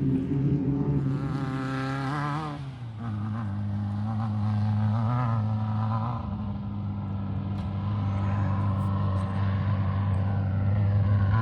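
Off-road race car engine running at a steady pitch. The pitch slips down slightly about two and a half seconds in, then holds.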